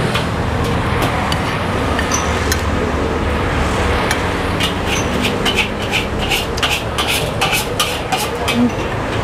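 Metal utensils clinking, a quick run of sharp clinks several times a second from about halfway, over a steady low rumble of street-stall background noise.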